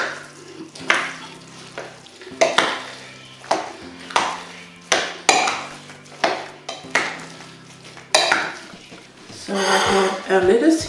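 Potato salad being mixed with two spoons in a glass bowl: a regular series of wet scraping strokes of metal on glass, about one a second. Near the end there is a longer, louder clatter of dishes.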